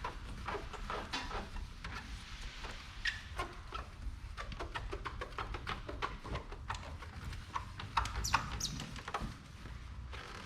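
Hand rubbing on a plastic headlight lens, a run of short scratchy strokes with a few high squeaks a little past the middle.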